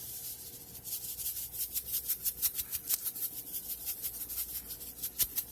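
Sea salt grinder being twisted over the oats, a fast, even rasping of several strokes a second as the salt is ground.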